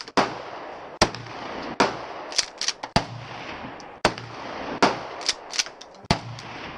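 Gunshots at a shooting range: about a dozen shots at uneven intervals, some loud and close, others sharper and fainter from further off, the louder ones trailing off in echo.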